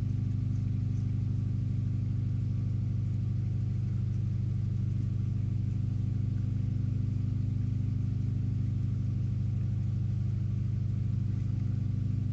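Steady low machine-like hum at constant pitch with a fast, even pulse underneath, unchanging throughout.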